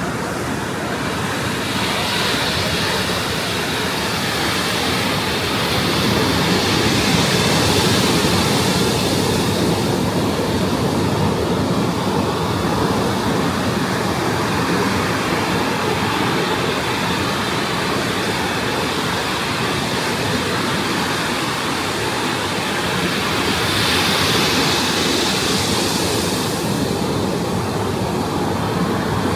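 Ocean surf: waves breaking and washing ashore as a steady rush, swelling twice, a couple of seconds in and again near the end.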